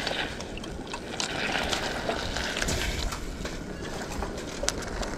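Thick canned boiled azuki beans sliding and plopping out of a metal can into an aluminium pot, with scattered small clicks of the can against the pot rim, over a steady hiss.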